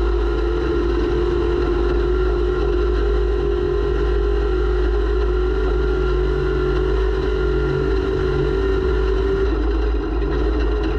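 Off-road race vehicle's engine running hard at a steady speed, heard from an onboard camera, with a constant drone and rumble; the steady note roughens about nine and a half seconds in.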